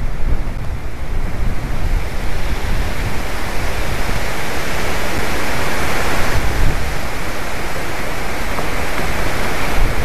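Wind buffeting the microphone and rushing through the treetop: a loud, steady rushing noise with deep rumbling gusts, swelling a little in the middle.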